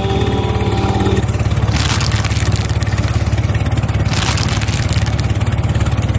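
An engine running steadily with a low hum and a fast, even pulse, with two brief surges about two and four seconds in.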